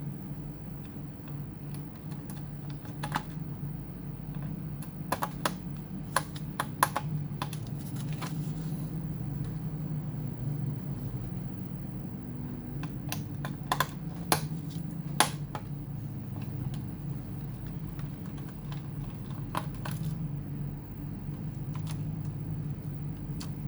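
Small sharp clicks and taps of laptop parts, screws and a screwdriver being handled, in scattered clusters, over a steady low hum.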